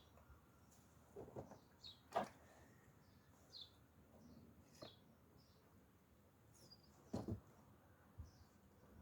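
Near silence, with a few faint bird chirps and several light knocks, the plainest about two seconds in and about seven seconds in.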